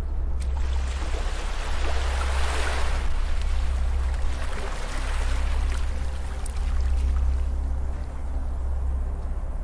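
Ocean waves washing onto a beach, the surf swelling twice and easing back, over a steady deep rumble.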